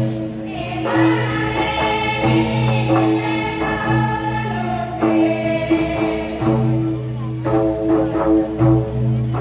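Folk dance song sung by a group, with barrel drums keeping a steady beat under a held low tone; the singing breaks off briefly between phrases.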